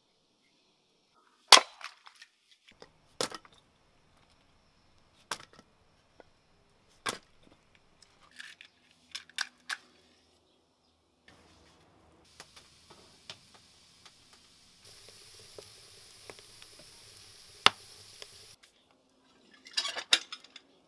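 Axe splitting firewood on a wooden chopping block: four sharp chops about two seconds apart, followed by lighter knocks. Later, wooden knocks and clatter as wood is loaded into a brick stove's firebox, with a steady hiss for a few seconds and a burst of clatter near the end.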